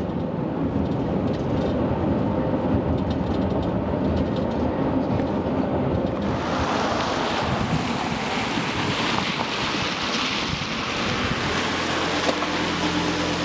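Road noise of a car driving on a wet road: a steady low rumble, joined about six seconds in by a louder hiss of tyres on wet tarmac. Near the end the rumble thins to a steadier hum.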